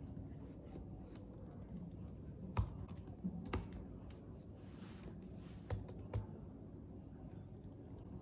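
Irregular light clicks and taps, with a few louder knocks, like keys being typed or small objects being handled.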